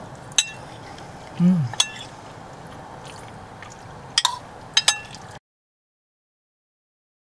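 A spoon clinking against a ceramic bowl while eating, four separate ringing clinks, with a short murmur about a second and a half in. The sound cuts off to silence about five seconds in.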